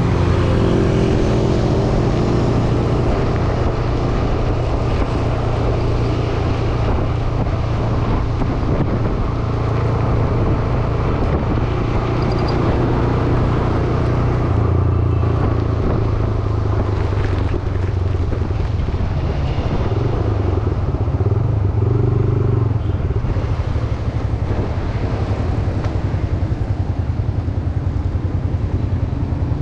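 Motorcycle engine running steadily while being ridden, with a constant rush of road noise over it.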